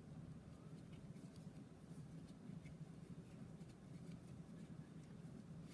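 Near silence with a faint low hum, broken by scattered faint ticks and scratches of a fine steel crochet hook working cotton thread into a magic loop.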